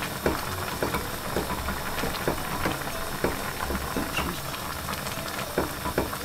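A saucepan of sliced peppers and onions at a rolling boil, bubbling steadily with many short pops, while a wooden spoon stirs through it.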